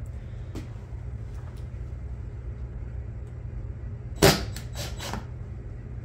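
Hand work at a wooden workbench: one sharp knock about four seconds in, as a tool or piece of wood is set down on the board, followed by three lighter clicks, over a steady low hum.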